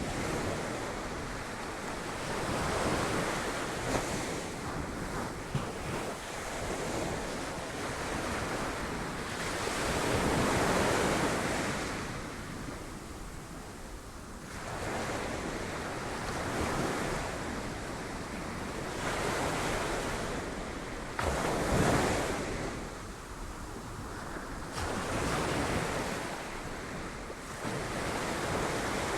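Sea waves breaking on a rocky shore, the surf swelling and falling back every few seconds, with a heavy break about ten seconds in and a sharper one past twenty seconds.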